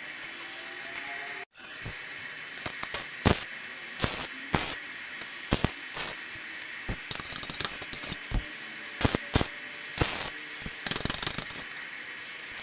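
Metal mechanism of a homemade hand-crank rotary drilling machine clicking and knocking irregularly as it is worked, with a short rattling run near the end.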